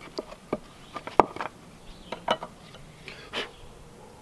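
Knife blade cutting and scraping into a small hand-carved wooden dish: about four short, sharp strokes at uneven intervals, the loudest about a second in.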